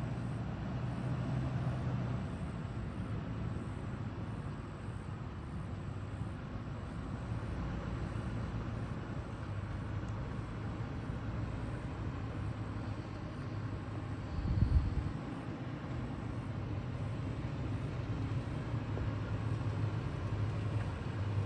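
Lexus GX460's 4.6-litre V8 running at low revs as the SUV crawls over deep ruts, a steady low hum, with one short low thump a little past halfway.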